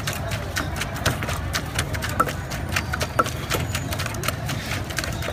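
Rapid, irregular knocking, roughly five or six sharp taps a second, over a steady low hum.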